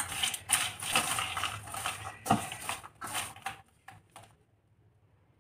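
Metal spoon stirring caramel-coated popcorn in a stainless steel bowl: irregular scraping and clinking against the bowl, stopping about three and a half seconds in.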